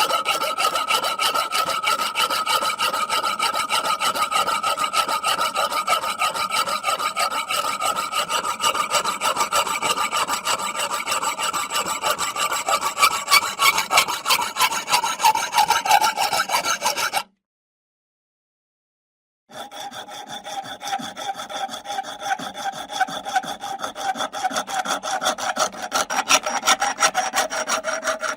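A saw cutting through wood in rapid, even strokes with a ringing tone. It stops about 17 seconds in, is silent for about two seconds, then starts a new cut with a lower ring.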